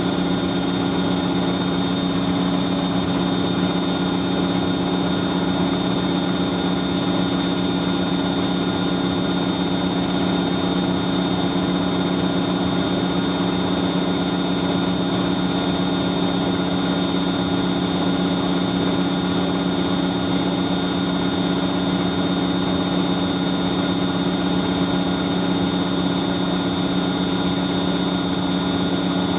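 Hoover A3060 Electronic 1100 twin-tub-era top-loading washing machine in its high-speed spin, its motor and drum running at a steady, unchanging hum with a constant low tone and a second tone above it.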